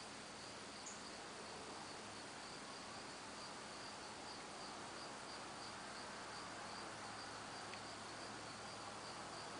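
Crickets chirping in a steady, evenly pulsed high trill over a faint even hiss.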